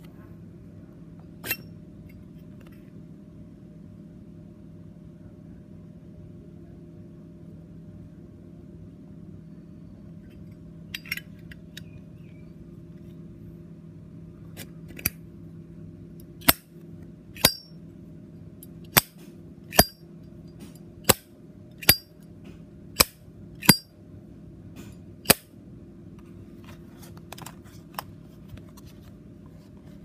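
High-polish chrome Zippo lighter lid being flipped open and snapped shut over and over, giving sharp metallic clicks. There are a few scattered clicks at first, then a run of about ten loud ones roughly a second apart, over a steady low hum.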